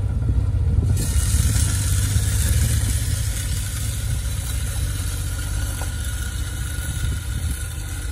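Can-Am Commander side-by-side's V-twin engine running as the machine pulls away, growing gradually fainter. A steady hiss joins about a second in.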